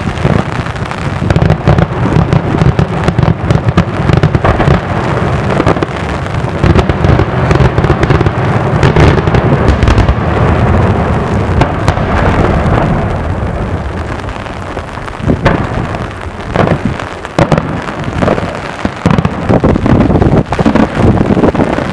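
Daytime aerial fireworks bursting in a dense, continuous rattle of bangs and crackles. About two-thirds of the way through it thins out to separate loud bangs.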